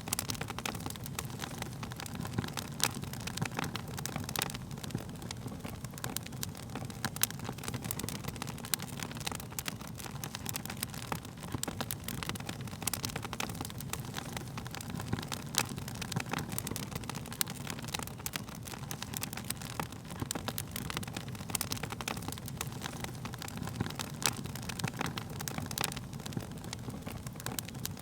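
Wood fire crackling: irregular sharp pops and snaps of burning wood over a steady low rumble of the flames.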